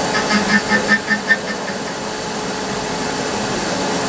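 Nomura DS 10EX3 automatic lathe running while cutting: steady machine noise with a constant high whine. A quick run of about seven short pulses, about five a second, comes in the first second and a half.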